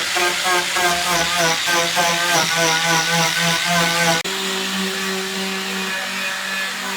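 An electric power tool running, its pitch wavering as the load changes. About four seconds in it breaks off abruptly to a steadier, even tone.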